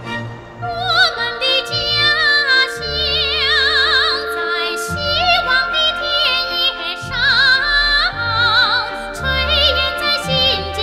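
A Chinese song sung by a high solo voice with wide vibrato, holding long notes over instrumental accompaniment. The singing comes in about a second in.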